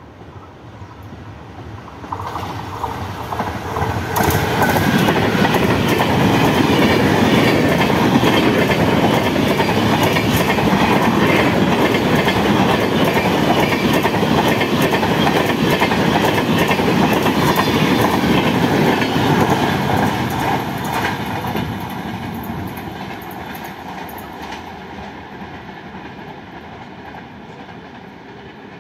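Indian Railways express train passing through a station at speed without stopping. The train's rumble builds as it approaches, stays loud with the wheels clattering over rail joints as the coaches rush past, then fades away as it recedes.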